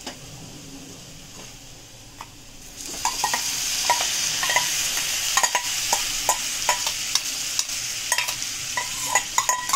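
Potatoes frying quietly in oil, then a sharp rise in sizzling about three seconds in as wet ground masala paste drops into the hot oil. Over the sizzle, a steel spoon clinks and scrapes repeatedly against a steel mixer jar as the paste is scooped out.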